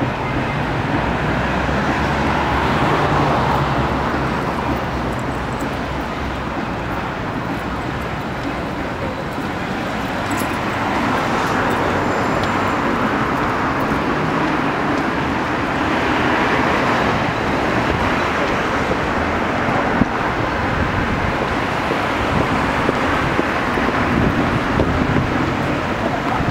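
City street traffic: cars passing in a steady road noise that swells as each one goes by.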